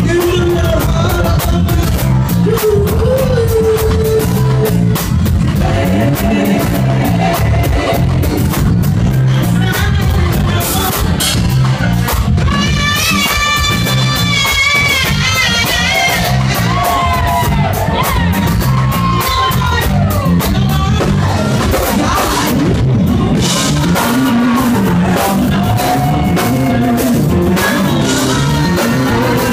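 Live funk and soul band playing loud: a woman sings into a handheld microphone over drum kit and electric guitar. About halfway through she holds a long note with a wide vibrato.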